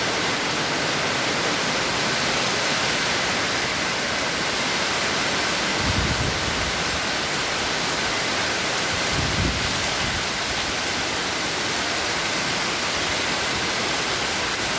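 Steady rain falling as an even hiss, with two brief low thumps about six and nine and a half seconds in.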